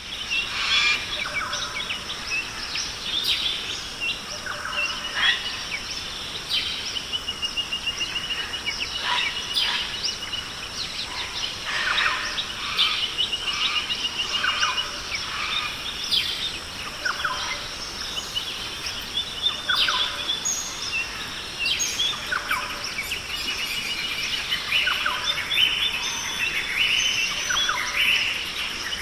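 A chorus of many birds calling and singing at once: dense, overlapping short chirps and whistles, with a rapid trill of repeated notes about a third of the way through.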